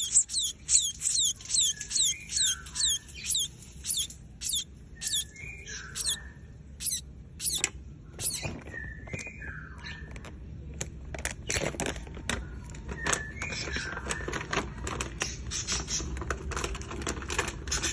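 Young munia (emprit kaji) chirping: a rapid series of short, high, falling cheeps several times a second, with lower squeaky notes every couple of seconds. About eight seconds in, this gives way to sparser chirps and clicks.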